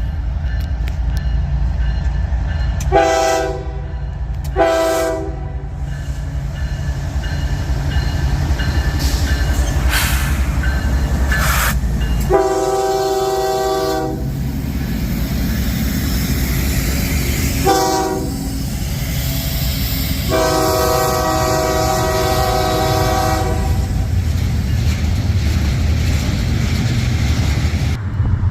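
Freight locomotive's air horn sounding five blasts over the steady rumble of the train: two short blasts a few seconds in, a longer one near the middle, a brief one, then a long blast held about three seconds.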